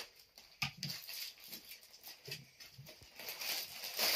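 Plastic poly mailer bag crinkling and rustling as it is cut with scissors and pulled open by hand, in short irregular crackles and soft handling thumps.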